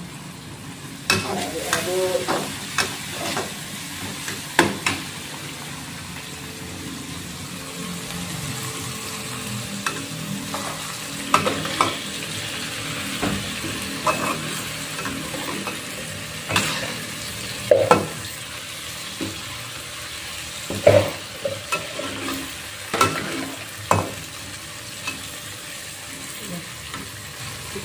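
Ground chili sambal frying in a wok with a steady sizzle, while a spatula stirs it, scraping and knocking against the pan again and again at irregular moments.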